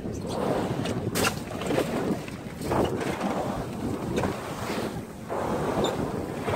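Wind buffeting the microphone on the open deck of a fishing boat at sea, gusting unevenly, with sea wash around the hull beneath it and a few brief knocks.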